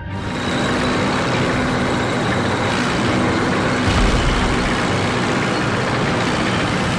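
Dubbed sound effect of a heavy tank engine running, a dense, steady noise that holds an even level throughout.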